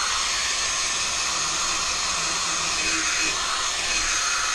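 Cordless drill spinning a wire brush against the rusty steel of a drill press to scrub the rust off: a steady, even whirring hiss with no change in speed.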